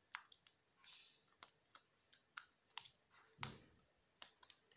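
Faint, scattered clicks and taps of a plastic toy package being handled while someone tries to open it. A slightly heavier knock comes about three and a half seconds in.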